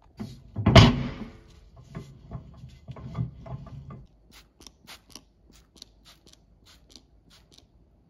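Microwave door handled with one loud clunk about a second in, followed by a few lighter knocks and rattles. Then a run of light, sharp ticks in the second half.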